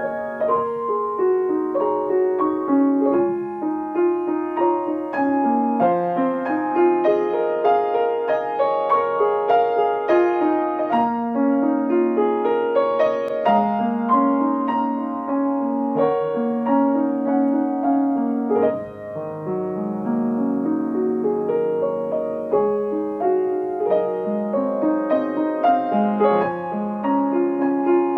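Solo piano playing a flowing piece of rising and falling runs of notes, played by a pupil pianist.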